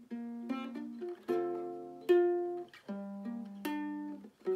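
Solo fingerpicked fretted acoustic string instrument. Chords and notes are plucked about once a second, and each rings and dies away before the next; the strongest one comes about two seconds in.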